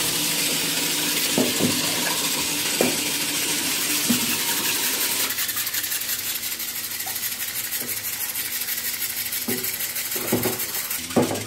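Water sloshing in a tub as toys and a rubber shark puppet are moved through it, a steady hiss with a few light knocks.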